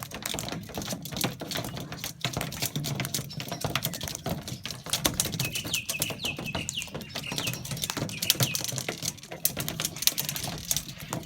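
Rapid, irregular clicking and tapping of cockatoos' beaks cracking and pecking at food. About six seconds in, a run of short, high bird cheeps.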